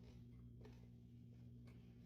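Near silence: a faint steady electrical hum, with two faint short clicks, one about half a second in and one near the end.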